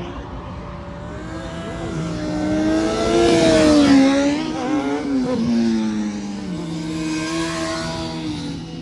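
A car engine accelerating past, its pitch rising, then falling as it goes by, loudest about halfway through.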